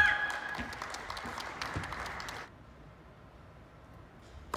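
Spectators clapping after a tennis point, a short ripple of applause that stops abruptly about two and a half seconds in.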